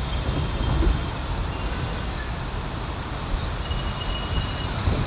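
Steady road traffic noise heard from a moving car, with a continuous low rumble.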